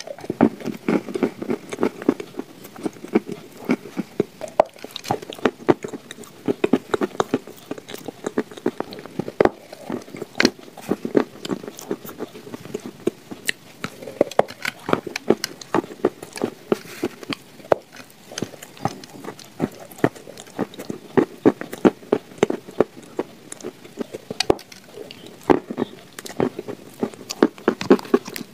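A person biting and chewing crumbly shortbread cookie with paste: a steady run of crunches and moist mouth clicks, several a second, with no pauses.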